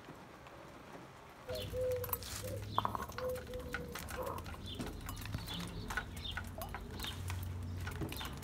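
Outdoor rain: drops dripping and pattering in sharp ticks, with birds chirping in short notes. It grows louder about a second and a half in, with a steady low rumble underneath.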